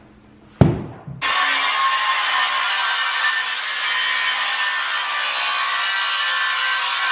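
A sharp knock, then a cordless circular saw cutting through a length of primed timber moulding: a steady sawing noise with a faint motor whine beneath it, starting about a second in and running on without a break.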